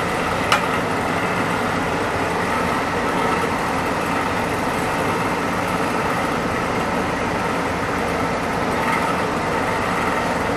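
Steady drone of an electric air blower running at an even level, with one sharp click about half a second in.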